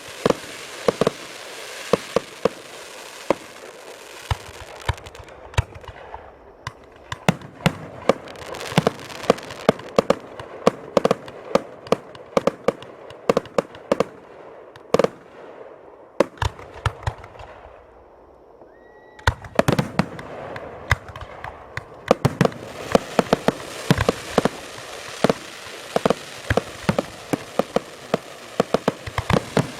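Aerial fireworks going off in a rapid, irregular barrage of sharp bangs and pops, several a second. The shots thin out into a brief lull about two-thirds of the way through, then start up again just as densely.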